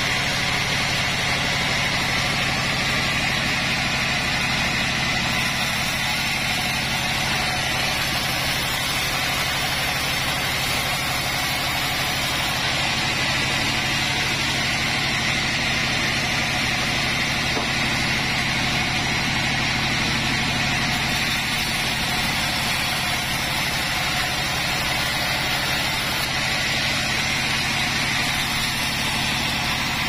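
Band sawmill running steadily with an even low hum while its blade rips a teak slab lengthwise into boards.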